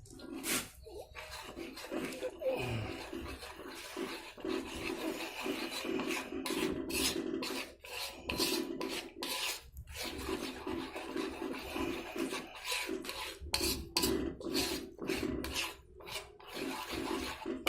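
A utensil scraping and rubbing against a pot as thick, doughy carp bait is stirred and mixed, in irregular repeated scraping strokes.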